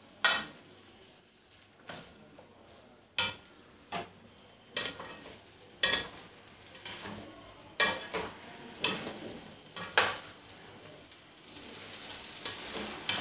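Beef strips and sliced bell peppers being stirred in a stone-coated frying pan, with a soft sizzle underneath. The utensil knocks and scrapes against the pan about once a second, and the sizzle grows louder near the end.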